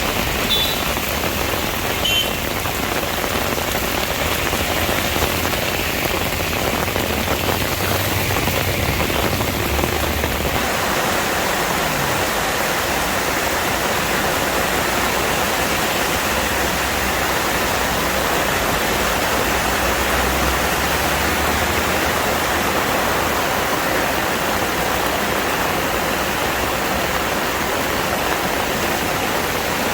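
Heavy monsoon rain pouring steadily, a dense even hiss.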